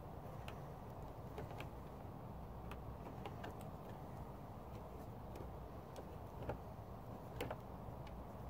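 Faint, irregular light clicks and taps over a low steady rumble, the sharpest click coming near the end.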